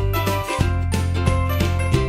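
Background music: an upbeat, bright track with a bass line, bell-like high notes and a steady beat.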